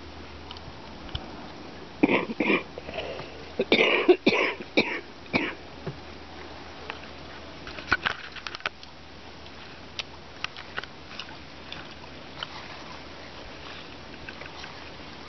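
A chimpanzee eating bananas: a run of short, breathy grunt- or sniff-like sounds about two seconds in, lasting a few seconds, then scattered small clicks and smacks of chewing.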